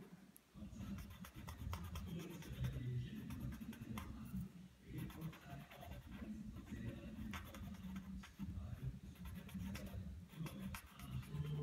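Paper blending stump (tortillon) rubbing and scratching over a paper tile in short repeated strokes, smudging in graphite shading.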